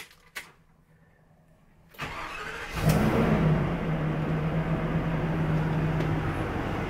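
Gas motorhome engine on a Ford F53 Super Duty chassis being started, heard from inside the coach: after a short crank it catches about three seconds in, revs up briefly and settles to a steady idle. It is the first start after an oil change with a new filter and drain plug.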